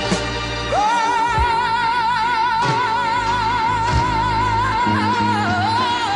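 Gospel song: a solo voice swells in about a second in and holds one long note with a wide, even vibrato over a steady accompaniment. Near the end the note dips and slides away.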